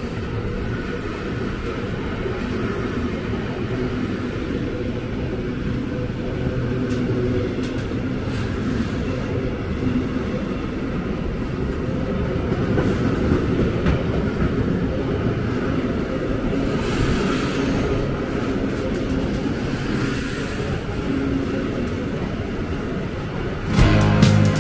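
Train rolling past with a steady low rumble and a few faint wheel clicks. Music cuts in at the very end.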